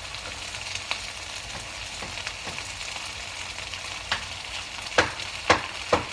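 Breaded chicken frying in a pan with a steady sizzle. From about four seconds in, a series of sharp knocks comes roughly twice a second, getting louder.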